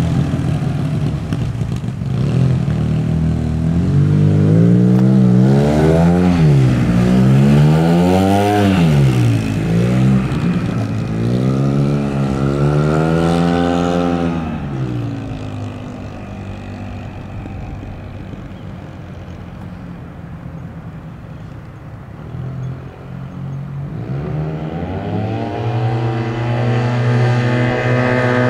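Yamaha TMAX 530 maxi-scooter's parallel-twin engine, through an Akrapovic exhaust, revving up and down repeatedly. It drops lower and quieter midway, then revs climb again near the end.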